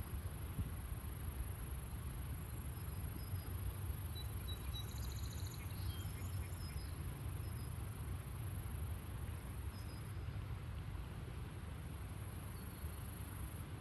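Quiet outdoor ambience: a steady low rumble under a constant high-pitched insect drone, with a few faint, short bird chirps about five to seven seconds in.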